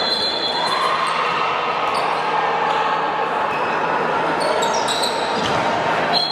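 A handball bouncing on the hard court floor of an indoor sports hall, with brief high shoe squeaks near the start and near the end, over a steady, echoing background din from the hall.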